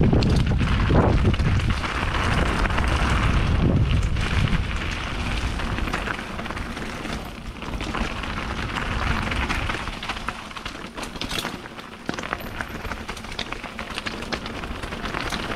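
Mountain bike rolling along a wet dirt-and-rock trail: tyres on the ground, with scattered knocks and rattles over bumps and wind rumbling on the action-camera microphone, heaviest in the first few seconds.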